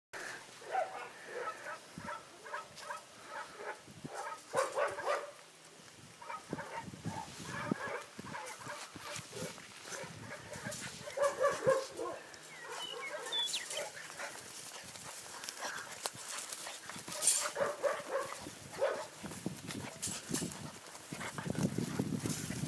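Several golden doodle puppies yipping and whining in many short, high calls, with brief lulls.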